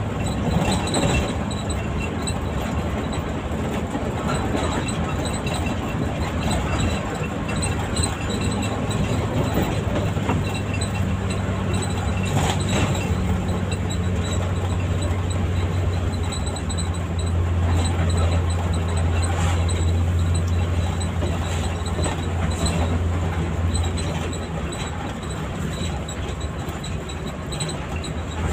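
Engine drone and road noise inside the cabin of a moving intercity bus, with occasional rattles and knocks from the body. The engine's low hum swells for several seconds past the middle, then eases.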